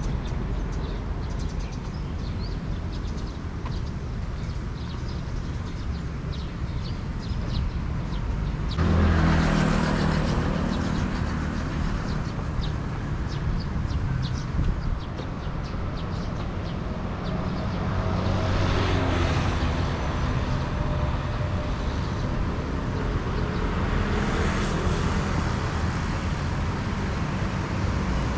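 Road traffic going by on a city street: a steady rumble of cars and scooters. It gets suddenly louder about nine seconds in as vehicles pass close, and swells again near twenty and twenty-five seconds.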